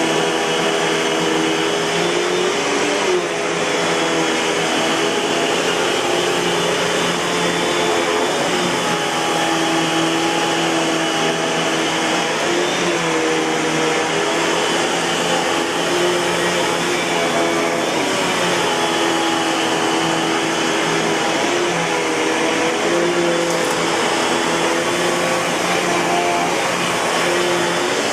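Eureka Boss canister vacuum cleaner running continuously at a steady, loud level, its motor whine wavering slightly in pitch.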